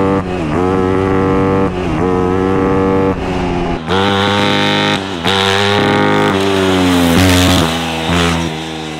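Shifter kart's swapped-in Yamaha YFZ450 single-cylinder four-stroke engine revving hard under acceleration through several quick upshifts. The pitch climbs and drops back at each shift.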